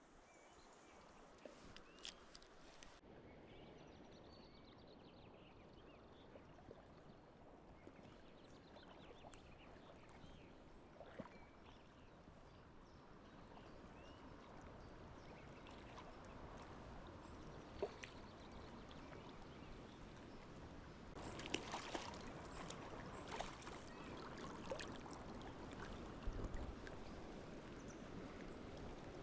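A stream running steadily, slowly growing louder, with scattered light clicks and taps.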